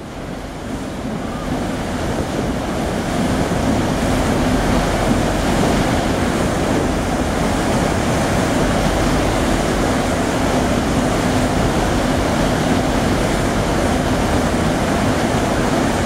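Wind buffeting the microphone and water rushing along a ferry's hull, over a steady low drone from the ship. The noise swells over the first few seconds, then holds steady.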